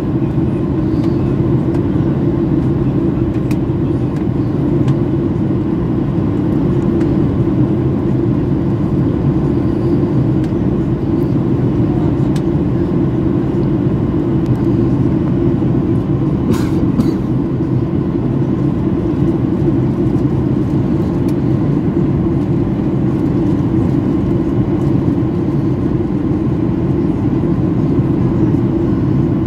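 Steady cabin noise of a Boeing 737 in flight: a constant low drone of engines and airflow heard from inside the passenger cabin.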